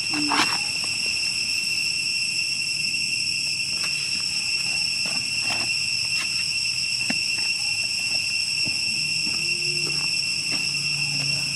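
Steady, high-pitched drone of an insect chorus, with a few faint ticks and rustles scattered through it.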